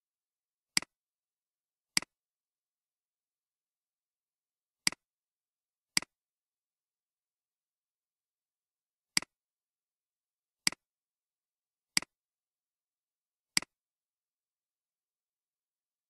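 Computer mouse clicking: eight sharp single clicks, irregularly spaced one to three seconds apart.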